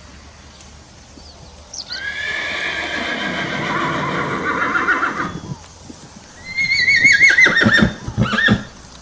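Horse neighing twice. A long whinny of about three and a half seconds starts about two seconds in, then a shorter whinny with a wavering pitch ends in a few quick pulses near the end.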